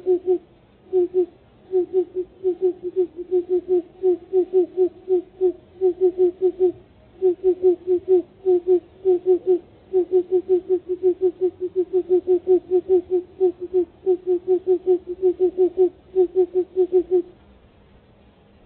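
Engine being cranked by its electric starter in hard cold, a rhythmic chugging whine at about five pulses a second, in long runs with brief pauses. The engine does not catch, and the cranking stops shortly before the end.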